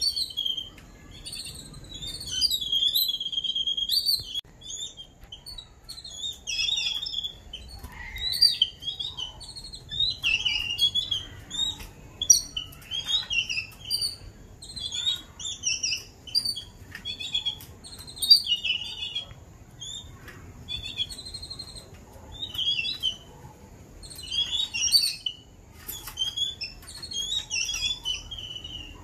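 Babblers (the birds known as seven sisters) calling in a dense run of short, high chirps. The caged chicks gape and beg as the adults feed them.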